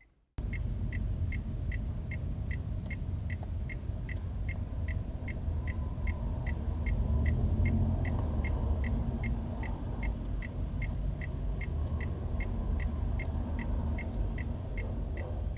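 Dacia Duster's turn-signal ticker clicking at an even pace, about three ticks a second, over the car's steady low engine and road rumble. It starts about half a second in.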